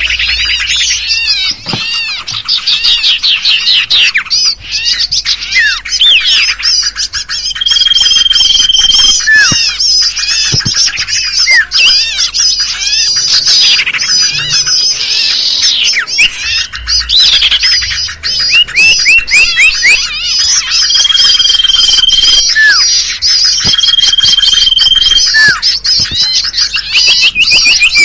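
Bird-lure (pikat) recording: a dense, busy chorus of small songbirds' rapid chirps, trills and scolding calls. A long, steady whistle on one note cuts through three times, about 8 s in, about 21 s in and about 24 s in.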